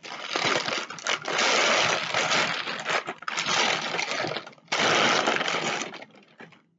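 Plastic mailing bag crinkling and rustling loudly as it is handled and a boxed item is pulled out of it, with a brief pause about three-quarters of the way through.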